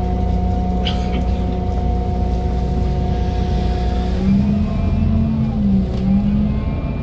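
City bus engine and drivetrain running under way, heard from inside: a steady drone over a low rumble. From about four seconds in its pitch starts to rise and fall.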